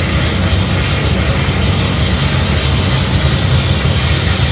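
Loud, steady wall of amplified noise from a live performance: a heavy low rumble with hiss over it, and no beat, melody or voice.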